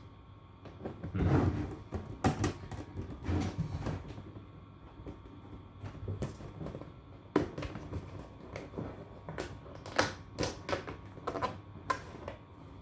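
Hard plastic panels of a flat-pack folding shoe box being handled and snapped together: irregular clicks and knocks, with a scraping rustle about a second in.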